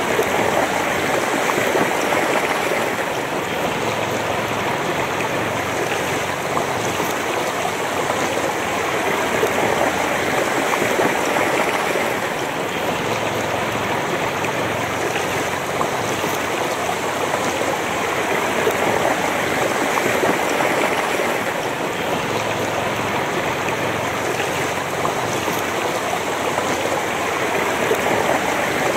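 Shallow river flowing swiftly over rocks and stones: a steady rushing and babbling of water.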